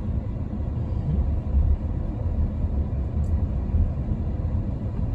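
Steady low rumble of a car heard from inside the cabin while it drives.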